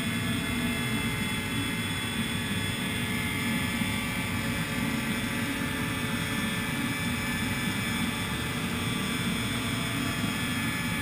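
Electric bead roller running steadily as the edge of an 18-gauge cold-rolled steel gas-tank half is fed between its dies to roll in a body step: an even motor drone with no hammer strikes.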